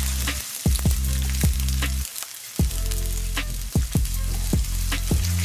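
Sliced onions and green chillies sizzling in hot oil in a stainless steel pan as they are stirred with a silicone spatula. Under it runs background music with a steady thumping beat that drops out briefly about two seconds in.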